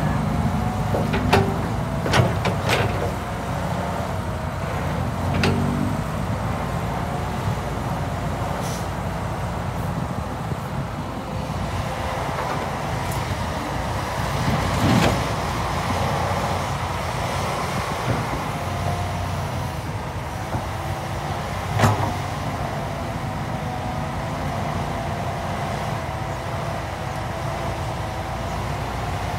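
Crawler excavator's diesel engine running steadily under load, its note rising and falling as the arm digs and swings. Several sharp clunks of the bucket and soil land over it, with a heavier spell about fifteen seconds in as a bucketful is dumped into a dump truck's bed, and the loudest knock a few seconds later.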